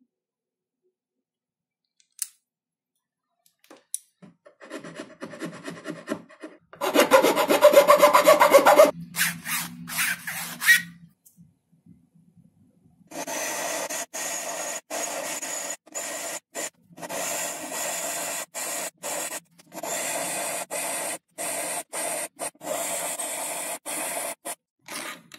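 A flat metal file rasping back and forth across a small wooden part held in a wooden vise, in even strokes about one and a half a second through the second half. Earlier come a few small clicks of wooden parts being handled and a short, louder burst of scraping on wood.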